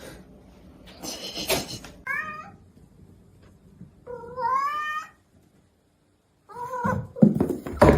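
A cat meowing: a short meow a couple of seconds in, a longer one of about a second that rises and falls, and another short one near the end. A noisy scuffle comes about a second in, and louder knocks come near the end.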